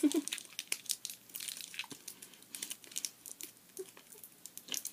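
Warheads sour candy wrappers crinkling as fingers work them open: a steady string of small, irregular crackles.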